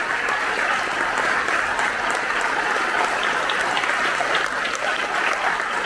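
A large audience applauding, dense and steady throughout.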